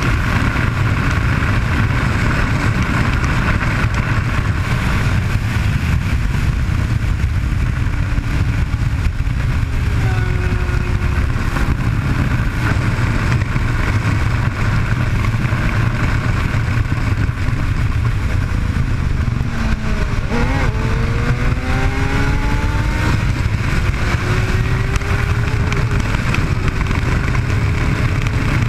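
Suzuki sportbike engine running at road speed, largely buried under heavy wind rush on the camera microphone. Its pitch climbs under throttle about a third of the way in, then dips sharply and rises again in a series of climbs through the last third.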